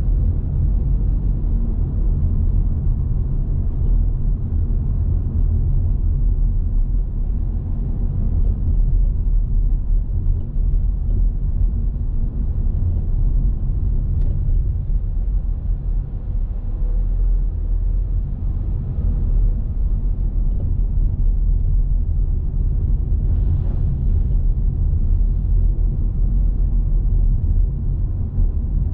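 A car driving along, a steady low rumble of engine and road noise.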